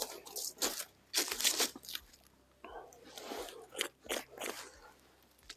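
Footsteps crunching on the forest floor, several uneven steps.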